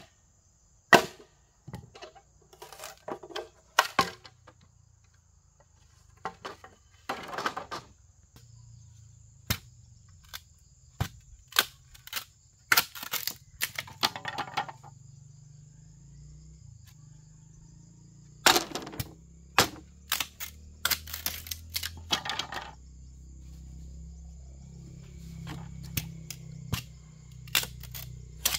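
Irregular sharp knocks and clicks, with a few short scraping or rustling bursts among them, over a steady high-pitched insect drone. A low rumble comes in during the second half.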